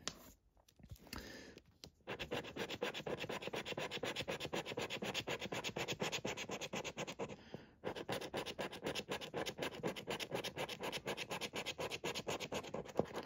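Scratching off the latex play panel of a £1 Blazin' 7s scratchcard: rapid, repeated rasping strokes, several a second, starting about two seconds in, with one brief pause near the middle.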